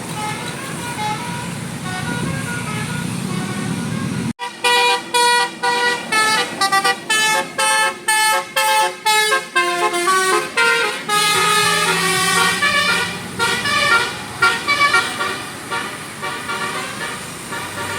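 Bus telolet basuri musical horn playing a melody of short tooted notes that jump in pitch, starting abruptly about four seconds in. Before it, a steady vehicle noise.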